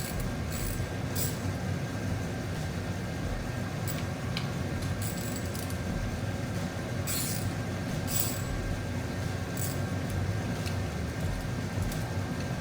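A steady low hum with a handful of short, sharp metallic clinks of hand tools on metal, spaced irregularly.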